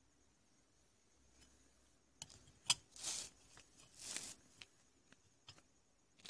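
Faint handling sounds: a few sharp clicks a little over two seconds in, then two short rustles, as fingers handle a grey disc on crumpled paper.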